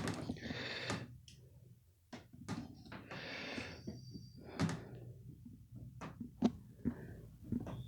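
Scattered light clicks and knocks with brief rustling between them: handling noise as the camera and the chainsaw are moved around by hand.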